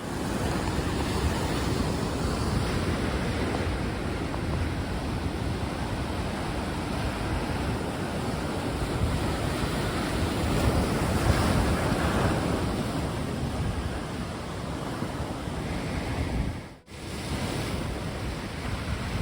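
Mediterranean surf washing onto the beach in a steady rush, with wind buffeting the microphone. The sound cuts out briefly near the end.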